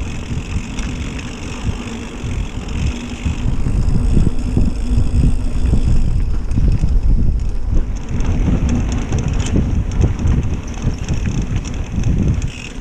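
Mountain bike riding a dirt trail: wind buffeting the camera microphone over the rumble and irregular jolts of the tyres and bike over bumps, getting louder about four seconds in.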